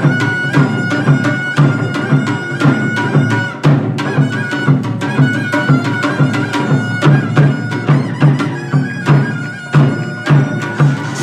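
Korean pungmul folk music: a taepyeongso (Korean double-reed shawm) plays a high, held melody over a regular beat of drums, about two strokes a second, with sharp metallic strikes of a small gong.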